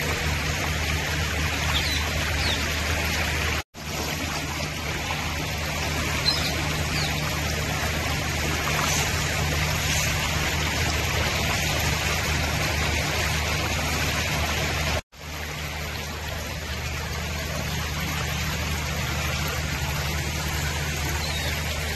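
Floodwater flowing across a road, a steady rushing noise, cut twice by a moment's silence.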